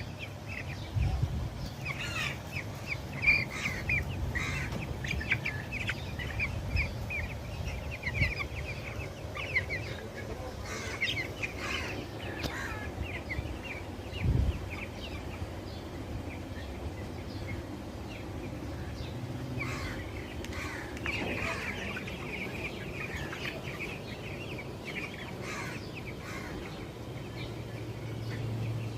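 A flock of broiler chickens cheeping, many short high calls overlapping, with a few knocks.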